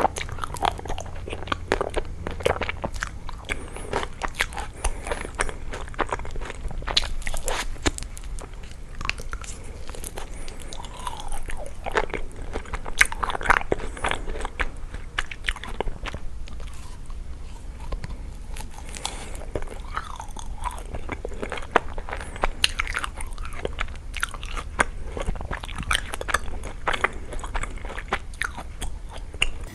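Close-miked eating of chocolate-coated ice cream bars covered in crushed nuts: crackly bites through the chocolate shell and nuts, with chewing in between. The bites come irregularly and without pause, over a steady low hum.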